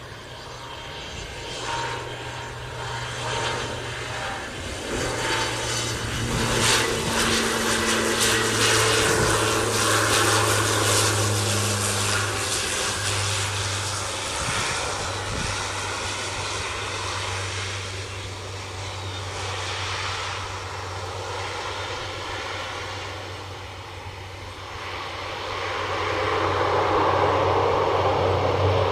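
Twin turboprop engines and propellers of an Indonesian Air Force NC-212-400 landing: a steady low propeller drone that grows loud as the aircraft passes about six seconds in, eases as it runs down the runway, and swells again near the end.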